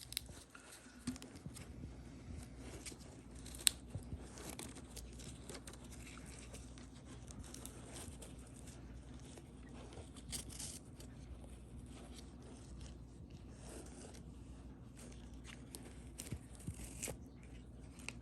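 Faint handling noise: scattered small clicks and rustles as a wristwatch and its packaging are turned over by hand, with one sharper click about four seconds in, over a low steady hum.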